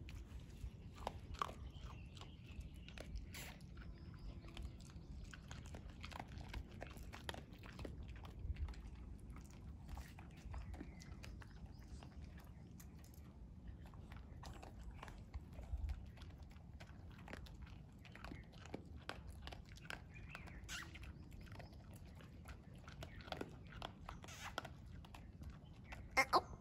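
Dogs crunching and chewing dry kibble picked off an asphalt road: a steady stream of small crunches, with a couple of louder clicks near the end.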